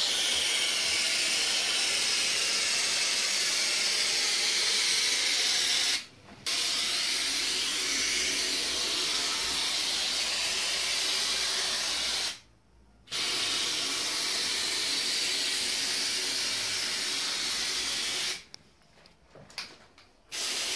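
Aerosol can of textured gotelé spray paint hissing steadily as it sprays onto a wall. The nozzle is released three times: a short break about six seconds in, another about twelve seconds in, and a longer one near the end.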